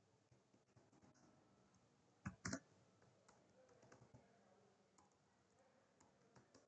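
Faint computer keyboard typing: scattered quiet key clicks, with two louder key strikes in quick succession a little over two seconds in.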